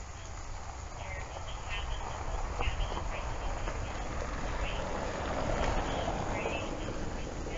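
Outdoor ambience: short trilled chirps repeating every second or so over a steady low rumble, with a broader rush of noise swelling about five to six seconds in.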